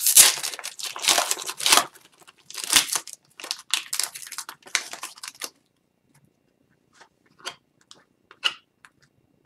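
Wrapper of an Upper Deck Series 1 hockey card pack being torn open and pulled off the cards, a run of rustling tears lasting about five and a half seconds, followed by a few faint ticks.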